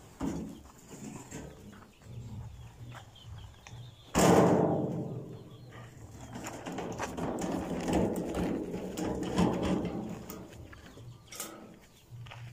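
A red two-wheeled metal cart being emptied of soil and set back on its wheels with a sudden loud knock about four seconds in. The empty cart then rattles as it is pushed over dirt for several seconds.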